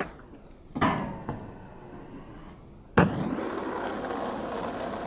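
Skateboard street trick: a sharp wooden clack about a second in, a hard board landing about three seconds in, then the skateboard's wheels rolling steadily over pavement.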